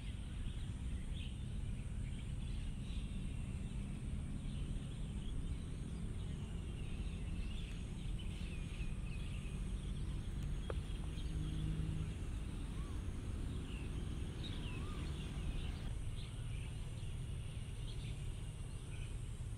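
Outdoor ambience of many small birds chirping and twittering, scattered short calls over a steady low rumble.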